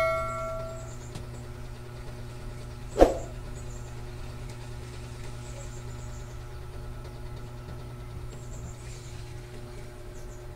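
Spinning reel being cranked by hand with its rotor turning freely: a faint steady whir with light ticking. A bell-like ding fades out in the first second, and a single sharp knock comes about three seconds in.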